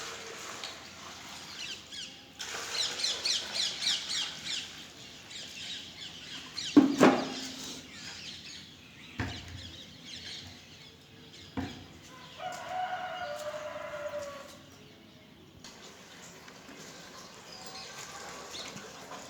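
Young chicks peeping in quick runs of high, falling chirps, with wing flapping among the birds. A loud knock comes about seven seconds in, followed by two smaller knocks and a longer pitched call a little later.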